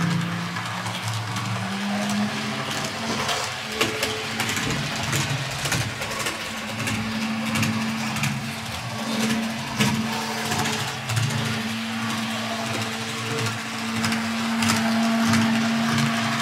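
TT-scale MTB class 842 railcar model running on its track, its motor and gears giving a steady whine that grows stronger about seven seconds in, with irregular clicks. The noise is from the drive, which the owner counts as a warranty case, at least for its gearing.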